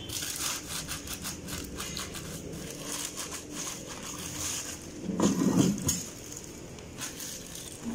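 Plastic wrapping on sewing machine heads crinkling as it is handled, in quick rustles and crackles. About five seconds in comes a short, louder, lower sound.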